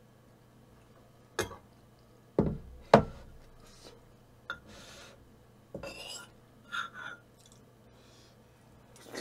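Eating utensils knocking and clinking against dishes at a meal table: three sharp knocks in the first three seconds, the third the loudest, then softer scattered sounds.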